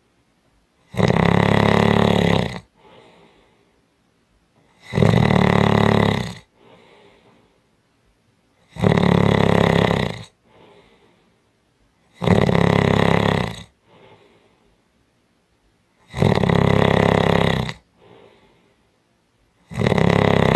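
A person snoring heavily in a slow, even rhythm, one loud rasping snore about every four seconds, each followed by a much quieter breath.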